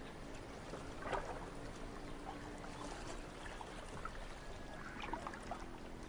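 Faint water ambience, trickling with a few small splashes, over a low steady hum.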